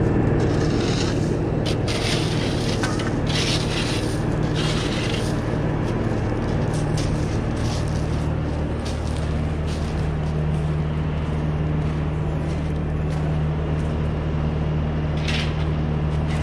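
A machine's engine running at a steady pitch, with scraping and rubbing sounds in stretches over it, most in the first five seconds and again near the end.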